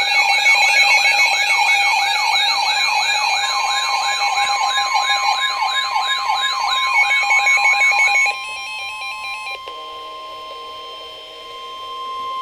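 Alert tones ahead of a NOAA Weather Radio warning: several layered siren-like alarms sweep up and down about three times a second, then stop about eight seconds in. Under them, and on after they stop, runs the steady single-pitch 1050 Hz NOAA Weather Radio warning alarm tone, joined by other steady lower tones near the end.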